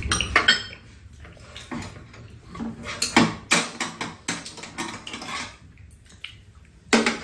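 Metal spoons and chopsticks clinking and scraping against bowls and a pan on a metal tray during a meal: a scatter of short clinks, the loudest a few about three seconds in and one just before the end.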